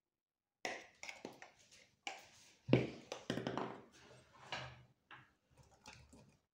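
A string of taps and knocks from handling kitchen containers and utensils while ground spice and chopped onion are added to raw chicken in a stainless steel pot. The loudest knock comes about three seconds in.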